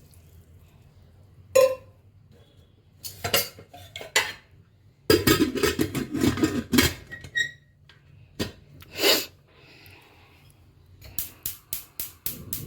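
Metal kitchen pots and utensils clattering and clinking while rice is set to cook. There are separate knocks, a busy stretch of clatter in the middle, and a quick run of light ticks near the end.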